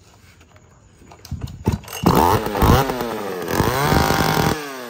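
Ruby 320 two-stroke chainsaw being pull-started: it catches about two seconds in and runs, its revs rising and falling as the throttle is worked. The used saw starts and runs.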